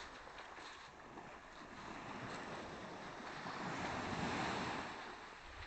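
Small waves of a calm sea breaking and washing on a pebble beach, one wash swelling louder about four seconds in.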